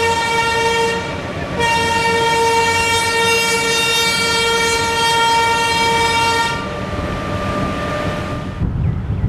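Train horn sounding in blasts: one ends about a second in, then a long blast of about five seconds, and a fainter horn tone carries on for about two seconds more. A steady low rumble of the moving train lies underneath.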